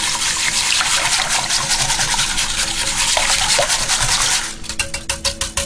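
A wire whisk beating a thin, milky rice pudding mixture in a slow cooker crock: steady swishing and sloshing of liquid, turning about four and a half seconds in to quick, even clicks as the whisk strikes the sides of the crock.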